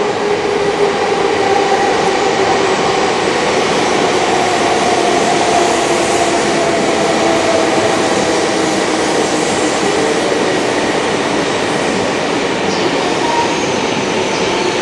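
A coupled JR East 400 series and E4 series Shinkansen train arriving through the station: a loud, steady rush of wheels on rail and air. Two faint humming tones under the rush sink slowly in pitch as the train slows.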